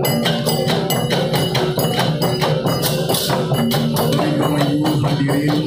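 Balinese okokan and tektekan ensemble playing on the march: large wooden okokan bells clattering and bamboo tubes being struck in a fast, dense interlocking rhythm, with drum and hand cymbals.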